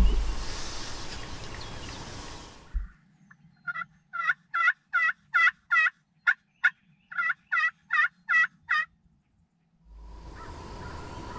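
Hen-turkey yelps worked on a slate (pot) call with a striker: about a dozen short yelps, roughly two a second, over some five seconds. Before them come a couple of seconds of low outdoor rumble that cuts off.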